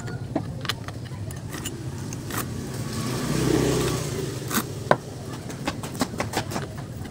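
A motorcycle passing by, swelling and fading about halfway through, over a steady low hum. Scattered sharp metallic clicks and taps come from a combination wrench working on a chainsaw's bar nuts and chain.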